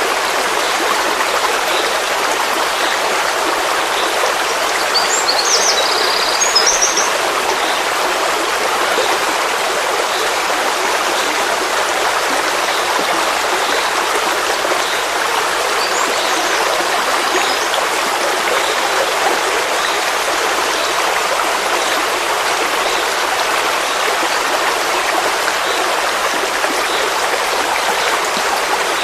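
Forest stream flowing steadily, a continuous rushing and babbling of water. A few short high chirps cut through it about five to seven seconds in, and faintly again around sixteen seconds.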